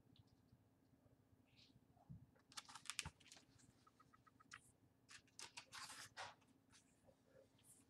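Near silence broken by faint paper rustles and light clicks as the pages of a picture book are turned by hand, in two clusters.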